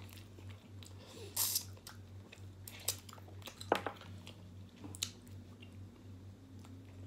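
Close-up chewing and biting of chicken eaten by hand, with scattered sharp clicks and one louder noisy burst about a second and a half in, over a low steady hum.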